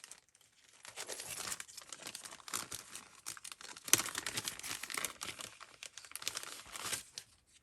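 Paper and plastic craft packets rustling and crinkling as they are handled and sorted, with one sharp tap about four seconds in.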